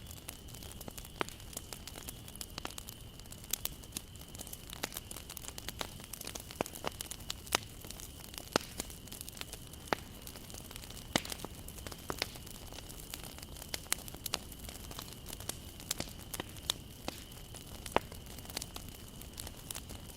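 Wood campfire crackling: irregular sharp pops and snaps over a soft steady hiss of burning, with a faint steady high tone underneath.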